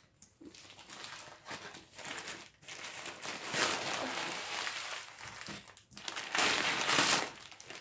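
Black plastic parcel wrapping crinkling and rustling as it is pulled off and crumpled around two cardboard kit boxes, loudest in two spells about three and a half and six and a half seconds in.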